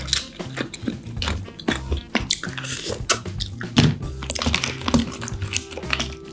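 Close-up eating sounds of steamed king crab: wet chewing and slurping, with sharp clicks and crackles of crab shell being picked apart by hand. Background music with steady low notes plays underneath.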